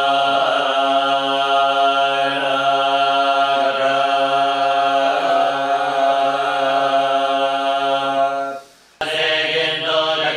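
Buddhist monks chanting sutras at a morning prayer service: a low, steady, droning chant with slow swells. It breaks off for a moment near the end and picks up again abruptly.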